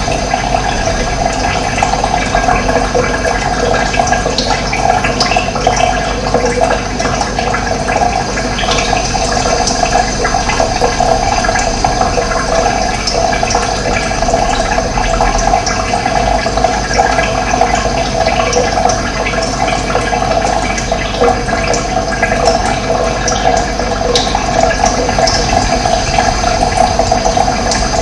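Running water rushing steadily, a dense even noise strongest in a mid-pitched band.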